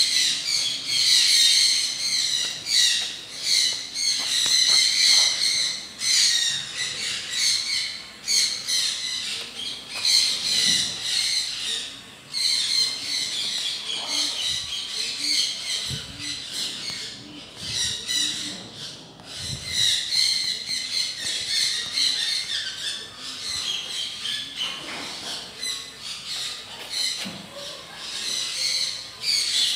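A flock of birds chirping and squawking continuously, many high calls overlapping.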